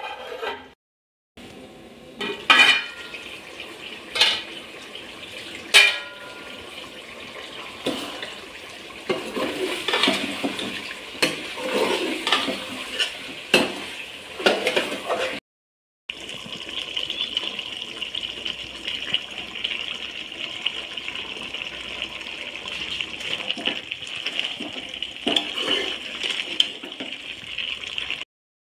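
A steel ladle scrapes and clinks against an aluminium pot while a potato and eggplant curry is stirred and sizzles in it, with a few sharp metal clanks in the first six seconds. The sound drops out abruptly a few times at edit cuts.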